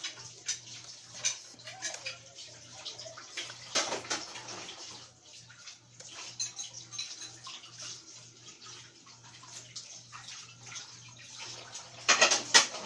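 Laptop keyboard being typed on: irregular key clicks, with a louder quick run of keystrokes near the end. A steady low hum runs underneath.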